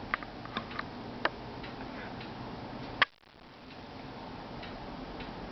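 A few light, irregular clicks and taps over a steady background hiss, with one sharper, louder click about three seconds in.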